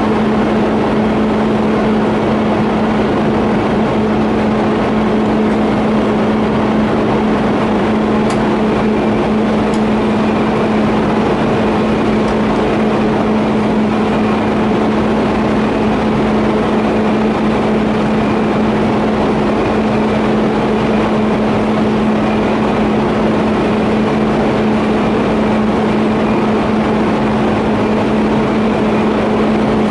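TIG welding arc held steadily on a 50A steel pipe flange-to-elbow joint: a loud, unbroken hiss with a steady hum underneath.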